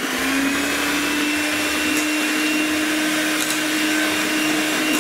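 Electric hand mixer running with a steady motor whine, its beaters whipping cold cream and icing sugar in a stainless steel bowl.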